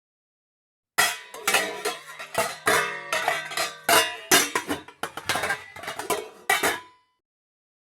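A short guitar riff of quick plucked notes, starting about a second in and lasting about six seconds before stopping.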